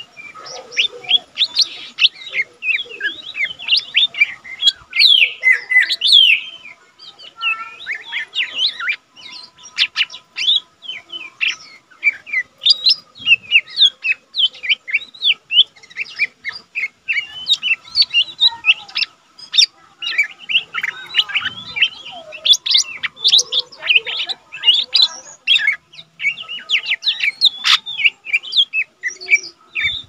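Lesser green leafbird (cucak ijo mini) singing steadily: a rapid, varied stream of high chirps and short whistles with only brief pauses.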